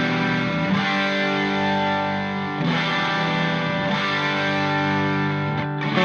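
Background music: distorted electric guitar playing sustained chords that change every second or two.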